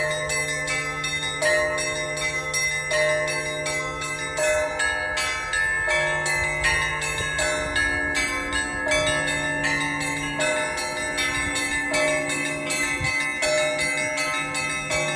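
Church bells in the Russian Orthodox festive style: small bells struck in a quick, busy pattern over a deeper bell that sounds about every second and a half.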